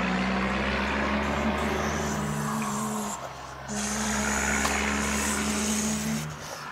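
A child's voice making a steady, low-pitched truck-engine noise while pushing the toy truck along the carpet, breaking off briefly midway and then carrying on.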